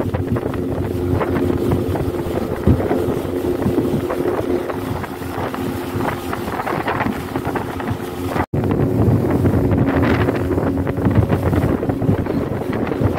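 A 75-horsepower speedboat's outboard motor running steadily at cruising speed, a steady hum under the rush of water against the hull, with wind buffeting the microphone. The sound breaks off for an instant about two-thirds of the way through, then carries on the same.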